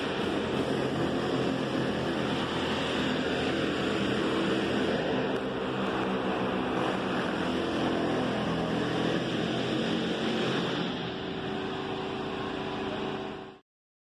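A machine running steadily, a loud low droning hum that cuts off suddenly near the end.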